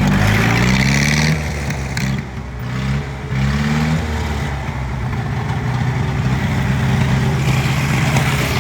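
1954 Fordson Major tractor engine blipped up in pitch a few times, then settling to a steady idle from about four seconds in.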